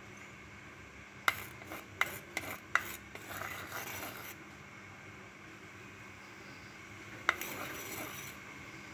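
A wooden spoon and a clay bowl knocking on a black stone cooking pot: four sharp knocks a little over a second in, then a soft scraping rustle as green peas are tipped into the curry. One more knock and rustle come near the end.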